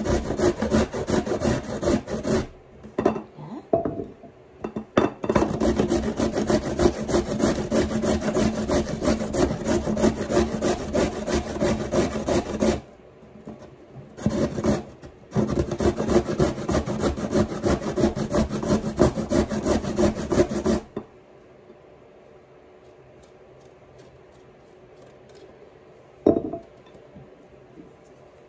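A carrot being grated by hand on a stainless steel box grater: rapid rasping strokes in several bouts with short pauses, stopping about three quarters of the way through. A single knock follows a few seconds later.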